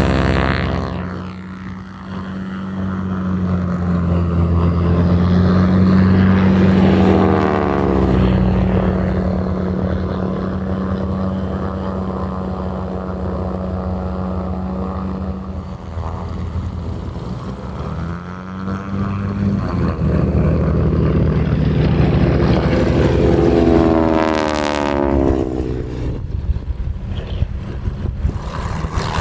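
Piston-engine propeller aircraft running steadily, with the engine pitch falling three times as aircraft pass by.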